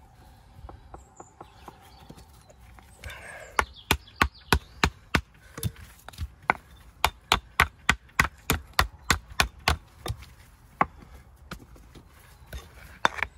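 Stones knocked against each other by hand: a run of sharp clacks, about three to four a second, starting about three and a half seconds in and thinning out near the end.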